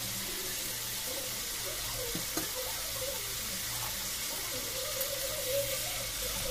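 Quail pieces and ginger-garlic paste sizzling steadily in hot oil in an aluminium kadai, with a few light clicks of a spoon against the pan. A spatula starts stirring near the end.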